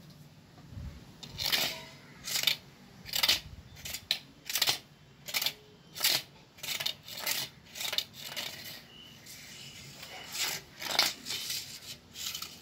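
A run of short rasping swishes, one every half second to a second, with a pause of about two seconds midway.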